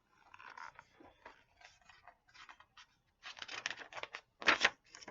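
Paper pages of a picture book rustling and being handled as a page is turned, in irregular bursts with the loudest swish near the end.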